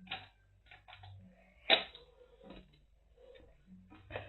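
Plastic wrapping being cut and pulled at on a toy ball, a series of crinkles and sharp clicks, the loudest snap a little under two seconds in.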